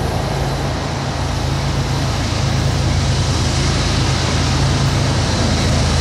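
Steady low rumble of diesel freight locomotives, growing slightly louder: a lashup idling close by while an oncoming freight train led by GE AC45CCTE and EMD SD70M units draws near.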